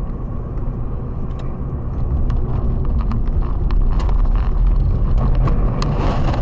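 Car cabin rumble from engine and tyres on a snowy road, with scattered sharp clicks. A little after six seconds a louder rushing crunch sets in as the car skids sideways off the road into the snow.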